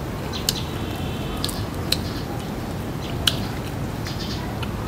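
A person chewing crispy fried baby duck egg with the mouth closed: wet chewing with a few short, sharp crunchy clicks, over a steady low background noise.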